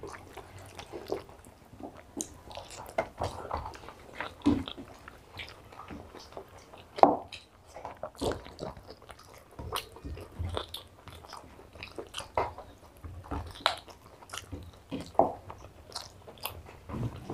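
Two people eating rice and mutton curry with their hands: chewing and mouth noises, with the soft squelch of fingers mixing rice and curry on paper plates. The sounds come as short, irregular clicks.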